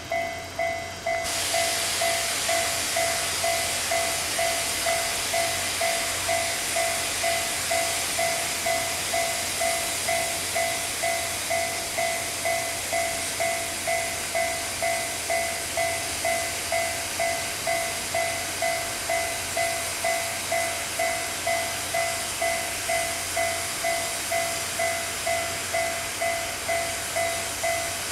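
A level-crossing warning bell ringing steadily, about one and a half strikes a second, over a loud, even hiss of steam from the double-headed C57 and C56 steam locomotives.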